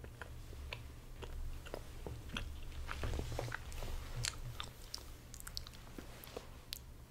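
Chocolate being bitten and chewed close to a microphone: a scatter of small wet mouth clicks and crunches, over a steady low hum.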